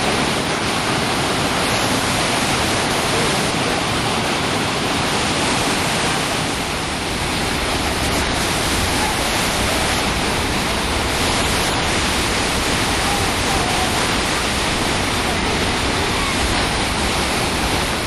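Steady, dense rush of a large waterfall in heavy flow, water pouring and crashing without a break, easing slightly for a moment about seven seconds in.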